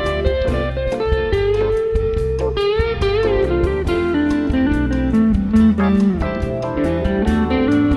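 Band music: a Les Paul-style electric guitar plays a sustained lead melody with pitch bends and vibrato, sliding down in pitch from about four to six seconds in, over electric bass and a steady beat.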